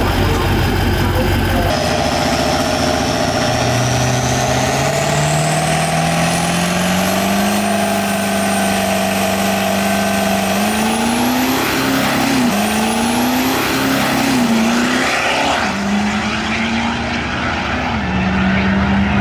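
Ford Super Duty diesel drag truck launching and accelerating hard down the strip. Its engine note climbs steadily for several seconds, with a high turbo whistle rising alongside. The note then dips several times in the second half as the transmission shifts up.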